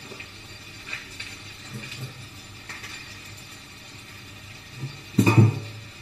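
Handling noises: a few light clicks and then one louder dull thump a little after five seconds in, over a steady low background hiss.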